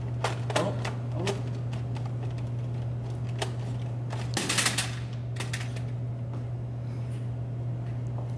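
Clicks and knocks of a small desktop computer's side cover being handled and pushed against the case, with a quick rattle of clicks about four and a half seconds in, over a steady low hum.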